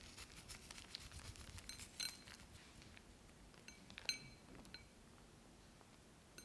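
Sesame seeds and chopped green onion sprinkled onto sauce-glazed fried chicken on a ceramic plate. It starts as a faint patter of many small ticks for the first two seconds or so. About four seconds in come a few light clinks with a brief ring.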